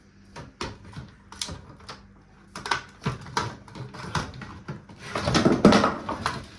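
Clicks and small knocks of plastic parts and cables being handled while the cables at the back of the circuit board are clipped free, with a louder scraping rustle about five seconds in.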